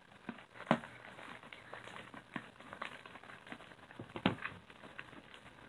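Fluffy slime made of glue, shaving foam and borax solution being stirred with a spatula in a bowl: faint, irregular sticky crackles and small pops, with two louder ones about two-thirds of a second in and just past four seconds in. The slime is clumping up and starting to come together as the borax takes hold.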